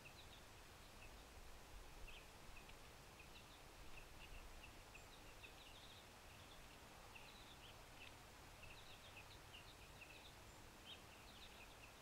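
Faint, high, short chips and twitters of small songbirds, many in quick scattered runs, over a low steady background rumble.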